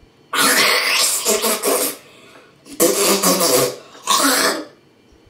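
A boy gagging and retching over a spit bowl: three loud heaves, the first the longest at over a second, the last short. It is his gag reflex at a foul-tasting jelly bean, which he takes for buttered popcorn.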